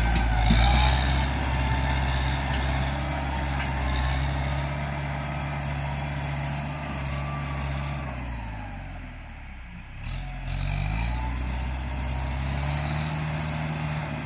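Diesel tractor engine running under load as it pushes a front blade through brush and dry scrub. About eight seconds in, the engine note falls and quietens. It picks up again about ten seconds in.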